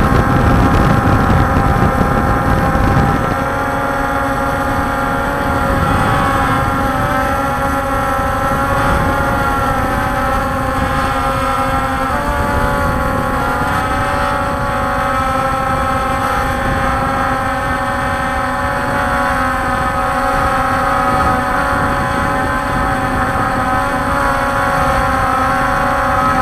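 Walkera Scout X4 quadcopter's brushless motors and propellers, heard from the onboard camera, running as a steady drone of several tones that drift slightly as the motor speeds adjust, with a small step near the middle. A heavier low rumble drops away about three seconds in.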